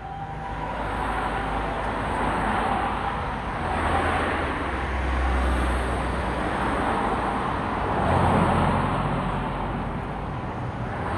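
Road traffic going past: tyre and engine noise that swells and fades as several vehicles pass, with a deep engine rumble about five seconds in.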